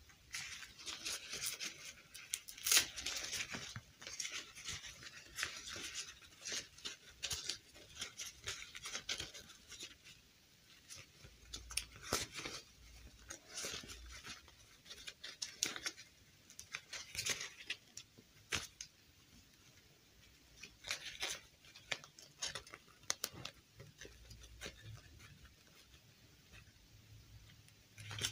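Rustling of a fabric doll dress and light clicks of a plastic fashion doll being handled as the dress is pulled onto it, in irregular bursts with short pauses.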